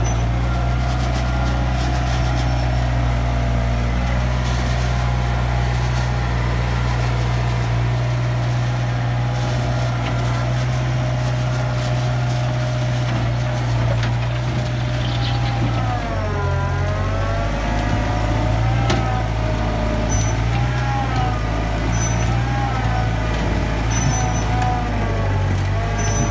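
International Harvester backhoe loader's diesel engine running at working throttle. It is steady at first, then from just past halfway its pitch sags and recovers several times as the hydraulics load it. A whine rises and falls with the engine.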